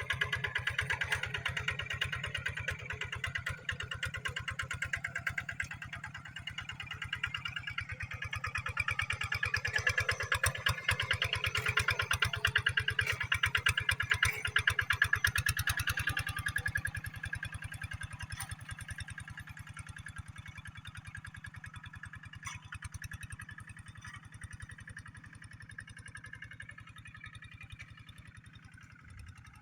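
D12S diesel engine of a paddy-field hand tractor running with a steady, rapid firing beat. It grows louder to about halfway, then fades gradually.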